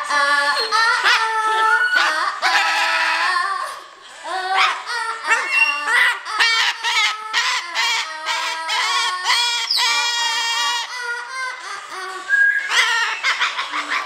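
Umbrella cockatoo singing: a long string of short, pitched, rhythmic calls, with a brief pause about four seconds in.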